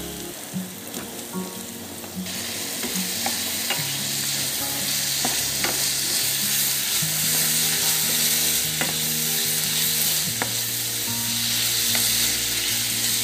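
Boiled beef pieces frying in hot coconut oil with tomato and chilli masala, sizzling louder from about two seconds in, while a spatula stirs them with scattered clicks against the pan.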